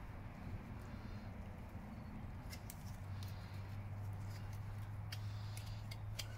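Faint scraping and light clicks of a wooden spatula smoothing acrylic onto a horse's hoof, over a low steady hum that grows stronger about halfway through.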